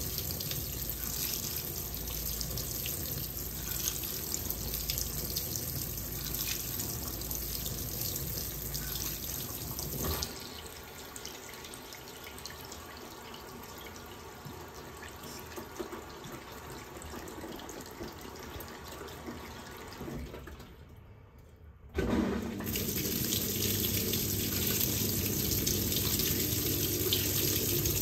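Fisher & Paykel WL8060P1 washing machine filling with water: water pours steadily into the tub, drops to a quieter flow about ten seconds in, nearly stops a little after twenty seconds, then starts again louder with a low hum.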